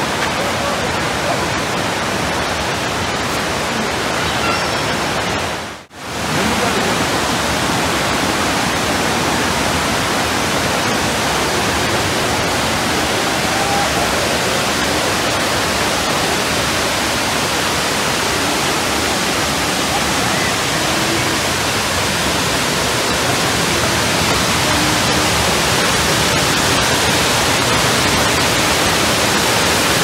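Steady roar of rushing water from a waterfall and its cascades, an even hiss with no rhythm, dropping out briefly about six seconds in.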